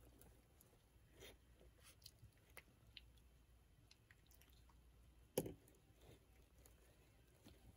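Baby raccoons scuffling in wood-shaving bedding: faint scattered rustles and scratches of shavings and claws, with one louder knock a little past the middle.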